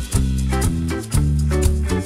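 Dance music with a deep, sustained bass line that pulses about once a second, with lighter plucked notes above.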